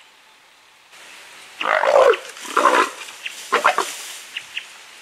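Leopard snarling in three harsh, loud bursts about a second apart. This is a close confrontation between two leopards, the female having got too close to the male.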